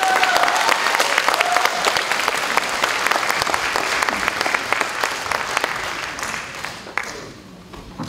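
Audience applauding: dense clapping that thins and dies away over the last few seconds, leaving a few scattered claps near the end.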